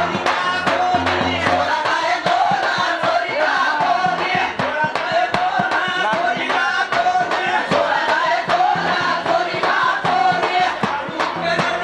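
Men singing a Banjara lengi folk song together over a quick, steady beat on a two-headed barrel drum (dhol) played by one of the dancers.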